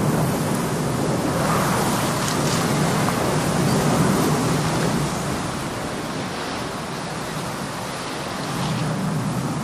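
Wind rushing through long grass and trees, a steady noisy hiss that eases off about halfway through.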